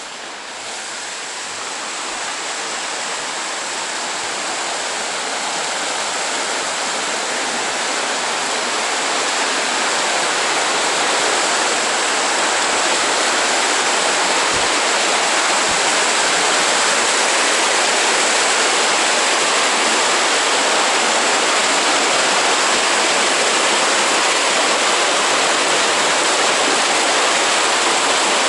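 Steady rushing of flowing stream water, a dense even wash that swells gradually over the first ten seconds or so and then holds steady.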